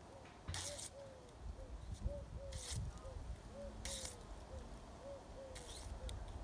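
Dried fan palm leaf being torn by hand into strips: four short ripping sounds. A dove coos over and over in the background.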